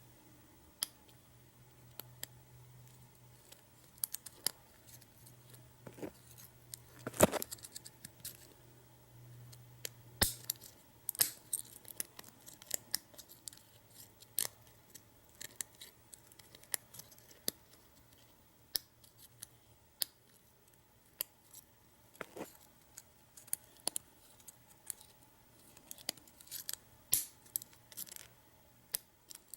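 Lock pick and tension wrench working the pins of a U-Haul disc padlock: irregular small metallic clicks and ticks, with a sharper click about seven seconds in.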